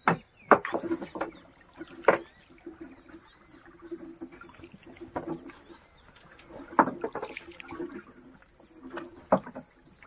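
Gill net being paid out over the side of a wooden boat, with several sharp irregular knocks as the net and its weights strike the hull, over a steady high whine.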